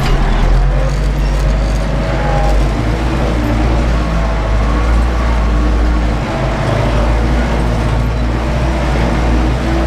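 Ursus 914 tractor's four-cylinder diesel engine running steadily under heavy load while pulling a disc harrow through heavy, clay-rich fallow soil, heard from inside the cab.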